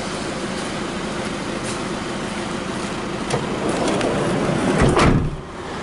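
Minivan engine idling at a standstill, heard from inside the cabin as a steady hum. About five seconds in, a louder burst of rumbling knocks, then it drops off suddenly.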